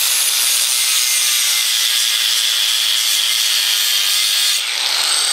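Handheld electric angle grinder with a 40-grit abrasive sanding disc grinding a cut-off bracket stub down on a metal motorcycle frame tube. It makes a steady, loud grinding hiss with a high whine in it, easing slightly near the end.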